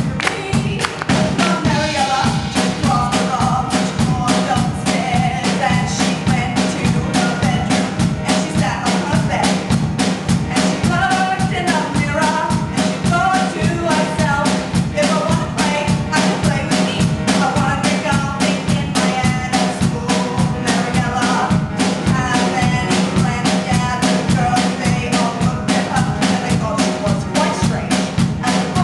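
Live pop song: a woman singing lead over grand piano and a drum kit keeping a steady beat.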